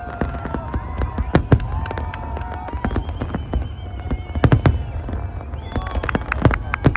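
New Year's fireworks display: a string of sharp bangs and cracks at irregular intervals, the loudest about a second and a half in and again around four and a half seconds in, over a constant low rumble.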